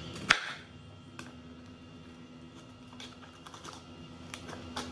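A chef's knife cutting a bitter gourd over a cutting board: one sharp knock about a third of a second in, then scattered light clicks and taps as the blade works through the gourd.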